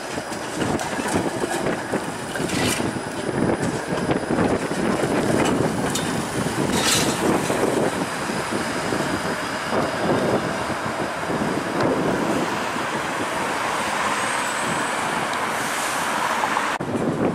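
Bombardier Flexity Outlook streetcar running along the street, mixed with passing car traffic and some wind on the microphone.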